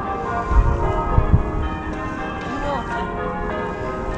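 English church bells ringing a peal of changes, many overlapping bell tones sounding on steadily. A few low thumps come about half a second to a second and a half in.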